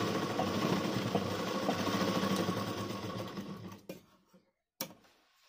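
Sewing machine stitching steadily, then slowing and stopping about three and a half seconds in. Two sharp clicks follow as scissors snip the thread.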